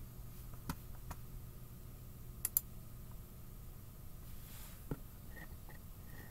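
A few sharp, widely spaced clicks and light taps, two of them in quick succession about two and a half seconds in, over a steady low electrical hum.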